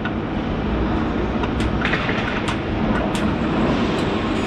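Steady loud industrial machinery noise, with a few sharp clicks scattered through it.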